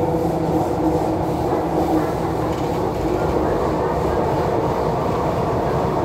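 MTR Q-Train metro car running through a tunnel, heard from inside the carriage: a steady rumble of wheels and running gear. A pair of steady hums from the traction equipment fade out about halfway.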